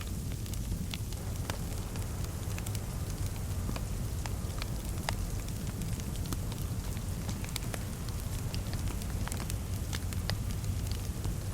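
Fireplace fire crackling: irregular small pops and snaps over a steady low rumble.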